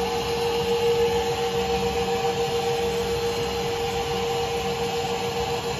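Steady machine hum with a constant whine, unchanging throughout.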